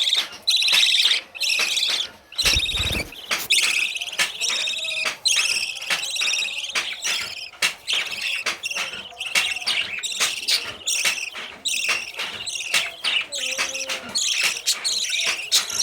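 Budgerigars chirping and chattering continuously in a fast, high-pitched warble. A brief low bump sounds about two and a half seconds in.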